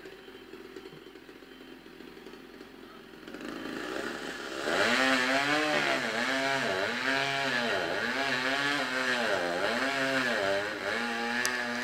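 Chainsaw running at high revs from about four seconds in, its pitch dipping briefly about once a second as the chain bogs down in the wood while cutting up a felled tree.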